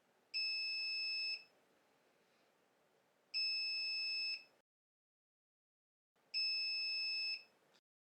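Alarm keypad buzzer sounding three steady, high-pitched beeps, each about a second long and about three seconds apart, while the panel is powered up during a factory default.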